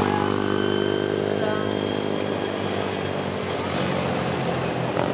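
Racing ATV engines running at speed on the track, one engine note held and sinking slowly in pitch over a few seconds before it changes.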